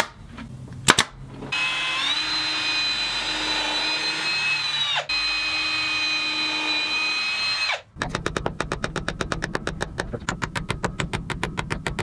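Two sharp snaps from a 23-gauge pin nailer, about a second apart, then a cordless drill running steadily in two runs of a few seconds each, with a short stop between them and the motor winding down at each stop. After that comes a fast, even tapping, about eight taps a second.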